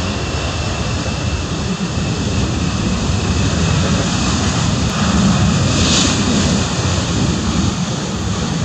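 Boeing 737-300 freighter's CFM56 jet engines running loud as the airliner rolls out down the runway after touchdown, a steady rumbling roar that swells to its loudest about five to six seconds in and eases off near the end.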